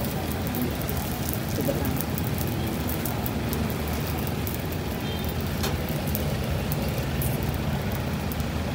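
Folded roti frying in oil on a flat round steel griddle, sizzling steadily with faint crackles, while a metal ladle presses it flat.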